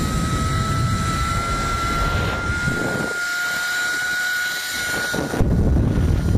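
Zipline trolley pulleys running along the steel cable at speed: a steady high whine that creeps slowly up in pitch and fades out about five seconds in. Heavy wind rumble on the camera microphone runs under it and grows stronger near the end.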